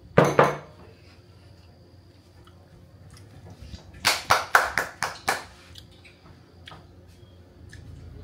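One sharp sound right at the start, then a quick run of about six sharp smacks, about four a second, some four seconds in; otherwise quiet room tone.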